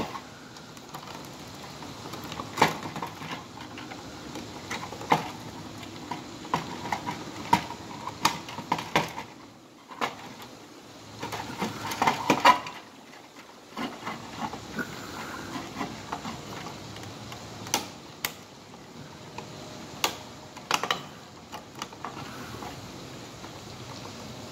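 Irregular clicks, taps and knocks from hands handling a Simplex horn strobe's plastic housing and its wires during installation, the busiest stretch about halfway through, over a faint steady hiss.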